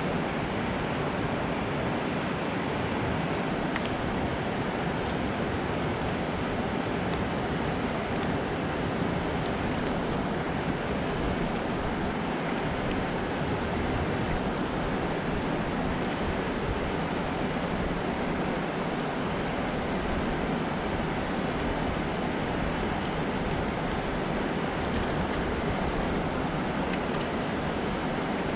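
Steady rushing of water pouring down a concrete dam spillway into fast water below.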